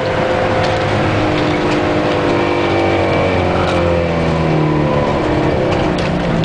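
Bus engine running under load, heard from inside the cabin, its pitch sliding slowly down and then shifting about four and a half seconds in.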